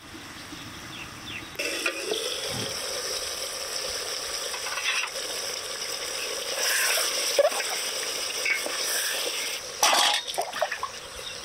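Duck curry sizzling and bubbling in a metal pot over a wood fire, midway through its slow-frying (kosha), while a metal slotted spatula stirs and scrapes through it. Near the end come a few sharp metal clanks.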